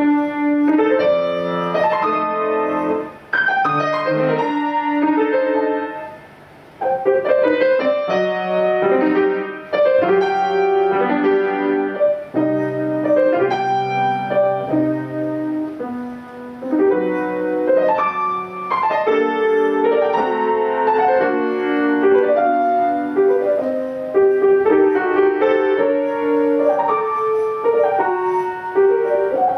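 Piano music: melody and chords played steadily, with two short breaks in the first seven seconds.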